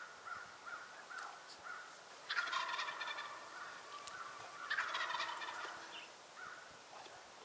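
Wild turkey gobbling twice, the two gobbles about two and a half and five seconds in, after a run of short, evenly spaced yelps.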